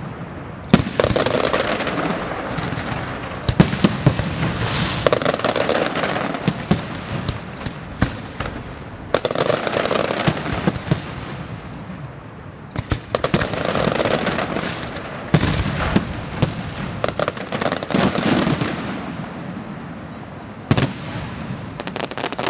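Large fireworks display: loud bangs of aerial shells with dense crackling, coming in waves about every four seconds.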